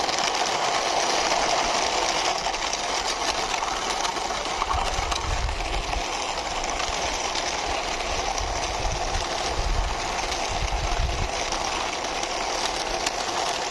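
Plastic toy truck's wheels rolling along a wall as it is pushed by hand, a steady rolling rattle with some low rumbles in the middle.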